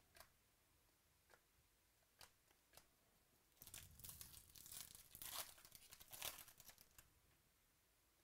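A few light clicks of trading cards being handled, then, about three and a half seconds in, a Bowman Chrome baseball card pack's foil wrapper being torn open and crinkled for about three seconds.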